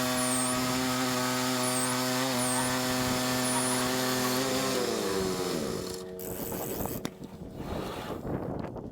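Engine of a Woodland Mills 122 portable bandsaw sawmill running at a steady pitch, then winding down about five seconds in, its note falling until it dies away. A few light knocks and clicks follow.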